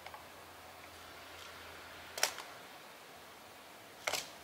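Two sharp clicks about two seconds apart, the second a quick little cluster, over a faint steady low hum.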